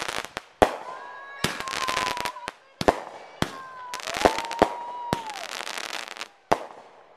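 Aerial fireworks going off: about a dozen sharp bangs at irregular intervals, with crackling from the bursting stars between them.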